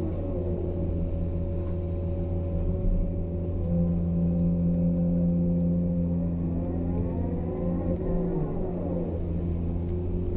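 Excavator's diesel engine running steadily, heard from the operator's seat; its note gets heavier a little before the middle, and a whine rises and then falls near the end.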